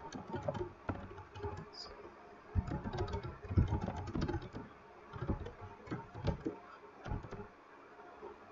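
Typing on a computer keyboard: irregular runs of keystrokes with dull thumps.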